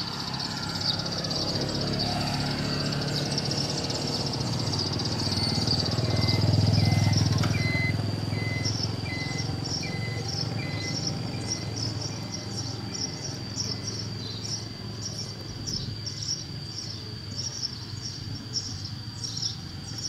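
Sparrows chirping in short, quickly repeated calls, about three a second from a little under halfway in, over a steady high insect trill. A passing vehicle adds a low rumble that swells and fades in the first half.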